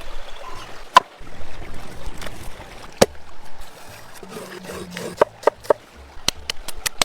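Sharp knocks of a blade chopping on a wooden surface: single strikes about two seconds apart, then a quicker run of chops near the end.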